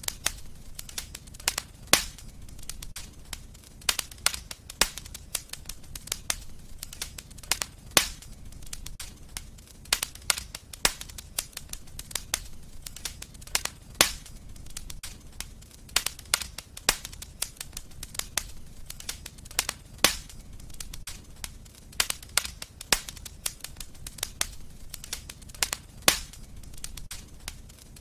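Wood fire crackling in a fireplace: a constant run of small snaps and pops, with a louder sharp pop every couple of seconds, over a low steady rumble.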